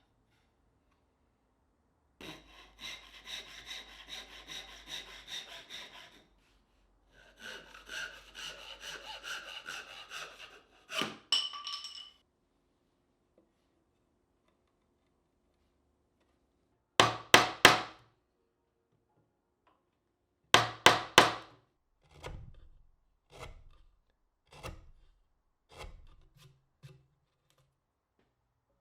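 Hand saw cutting wood in two spells of quick, even strokes, the blade ringing as it goes. Then sharp knocks on wood: two loud clusters of three, followed by softer, scattered ones.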